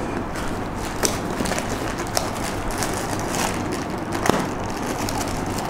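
A parcel being handled and opened: scattered clicks, knocks and rustles of packaging, the sharpest about one second, two seconds and four seconds in, over a steady low rumble.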